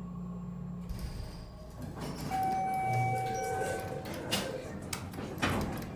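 Schindler hydraulic elevator's doors sliding shut, with a steady tone sounding for about two seconds partway through and a couple of knocks near the end.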